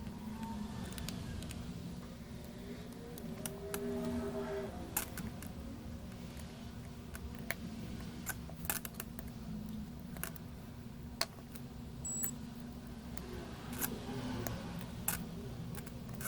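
Irregular sharp clicks and taps of small repair tools handling the iPad on the bench, over a steady low hum.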